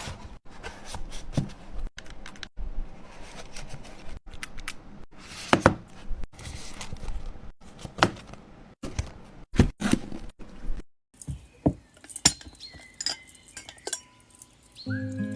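Close handling sounds: objects tapping, clicking and knocking as they are fitted into the plastic compartments of a storage case. Near the end come sharper clinks of a drinking glass being handled and set on a coaster.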